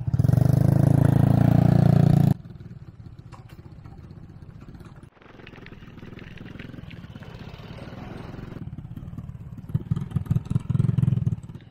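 Motor vehicles passing close on a dirt road: a loud rush of engine and tyre noise for the first two seconds that cuts off abruptly, then quieter road noise, then a small motorcycle engine running loud in pulses near the end.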